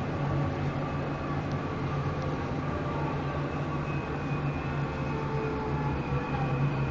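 Dubai Metro train running along elevated track, heard from inside the car: a steady rumble of wheels on rail with a strong low hum and faint whining tones above it.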